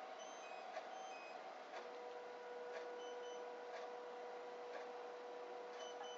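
Ka98V satellite antenna's motor driving the dish's elevation up: a steady hum that starts about two seconds in. Light clicks and a few short, high double beeps come and go over it.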